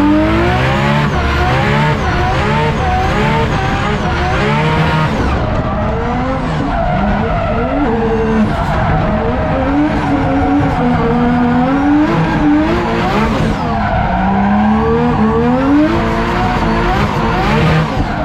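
A drift car's RB26 twin-turbo straight-six revving hard, its pitch climbing and dropping over and over as the throttle is worked, with tyres squealing and skidding.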